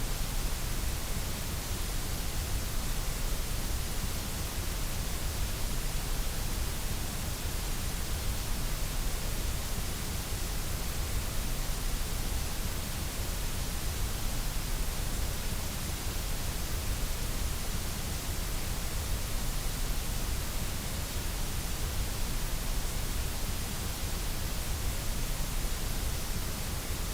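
Steady white noise: an even, unchanging hiss across the whole range of pitch, with no events or changes.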